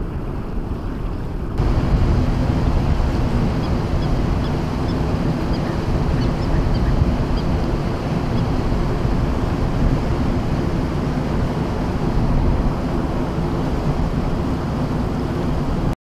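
Wind buffeting the microphone over the wash of a calm sea at the shoreline, a steady rushing that gets louder about a second and a half in. Faint short high chirps come now and then.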